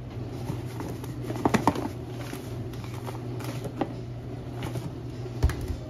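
Dry homemade laundry detergent powder (grated soap, baking soda and washing soda) shifting and rattling inside a lidded plastic container as it is shaken to mix, with irregular knocks.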